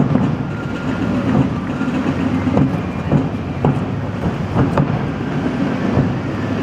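Engines of a Chevrolet ambulance and a Ford SUV running as they roll slowly past: a steady low rumble with a few short sharp clicks.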